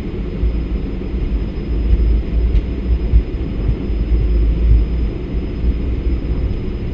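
Cessna Citation CJ1+ twin-turbofan business jet on its takeoff roll at takeoff thrust, heard inside the cockpit: a loud, steady low rumble with uneven bumps from the run down the runway, and a thin steady high tone above it.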